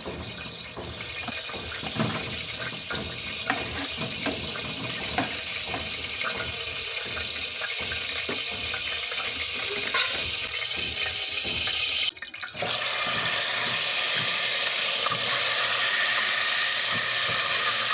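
Running water, like a tap pouring into a sink, with scattered small knocks and clinks. It breaks off briefly about twelve seconds in, then comes back louder and steadier.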